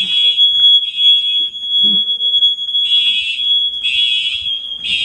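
Simplex GX-90 mini horns and TrueAlert fire alarm horns sounding the temporal-3 evacuation signal: three short, loud blasts about a second apart, a pause of over a second, then the next three blasts, over a continuous high-pitched tone.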